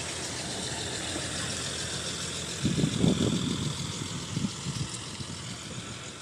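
City bus driving past with its engine running, loudest about three seconds in and fading after.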